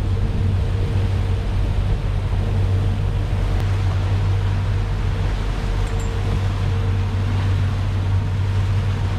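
Boat engine running steadily at trolling speed: a constant low drone under the rushing noise of the wake and wind.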